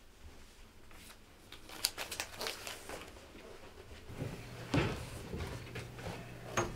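Handling noises in a small room: a run of light rustles and clicks, then a louder knock a little past the middle and one more sharp click near the end.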